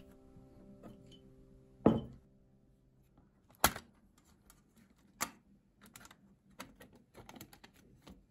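A Winsor & Newton watercolour paint box being handled and opened on a wooden desk. There is one loud knock about two seconds in, a sharp click of the case opening a little later, then a run of lighter clicks and taps as the lid and palette are lifted.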